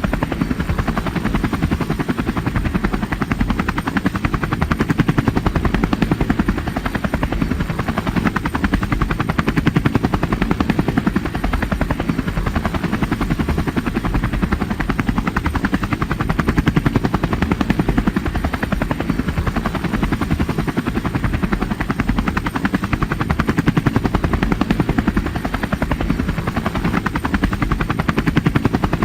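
Helicopter rotor blades chopping in a fast, steady rhythm, at an even loudness.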